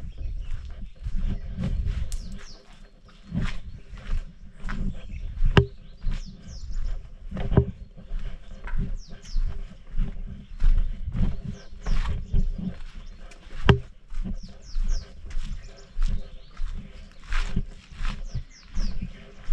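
Wind rumbling over the microphone while someone walks on stone paths, footsteps and small knocks coming about one to two a second. Small birds chirp throughout with many short, high, downward-sliding calls.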